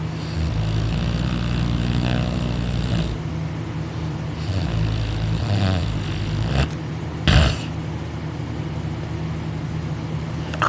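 A man snoring loudly in his sleep: two long, rattling snores about four seconds apart. A short, sharp, loud sound follows about seven seconds in.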